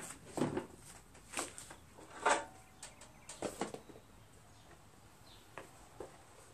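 Scattered knocks and clunks of a go-kart front wheel being slid off its axle spindle and set down on a concrete floor, then the new wheel being picked up; the loudest knock comes a little over two seconds in.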